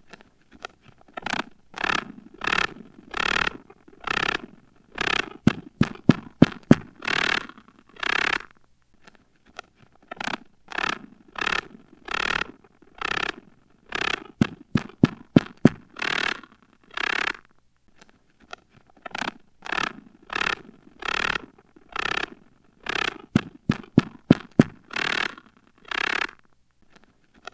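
Spider sound effect meant as a spider attacking and eating a cricket: short bursts of noise, about two a second, broken by quick runs of sharp clicks. The same sequence plays three times over.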